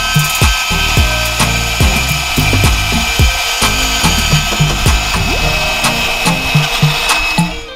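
Background music with a steady beat and bass line, fading out near the end.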